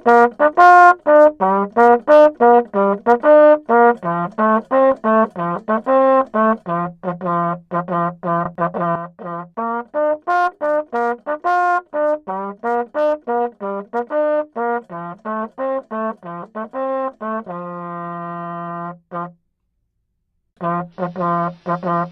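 Brass instrument playing a quick, bouncy tune of short detached notes as play-off music. Near the end one long note is held, there is a brief silence, and then the tune starts again.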